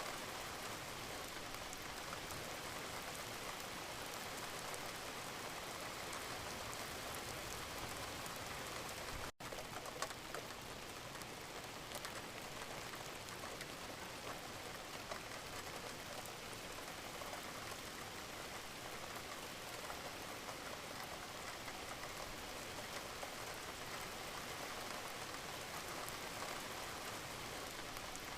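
Steady gentle rain, an even hiss with scattered drop ticks. About nine seconds in the sound cuts out for an instant, followed by a single louder click.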